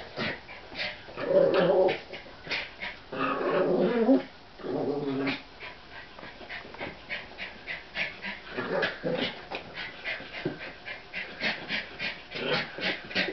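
American Eskimo Dogs play-growling in three bursts over the first five seconds, followed by a run of quick, light clicks and taps.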